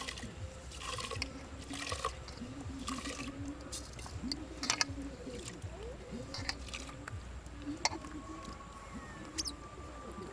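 Ginger being ground into a wet paste on a stone slab with a hand stone, a short scraping stroke about every second, with a couple of sharper knocks of stone on stone.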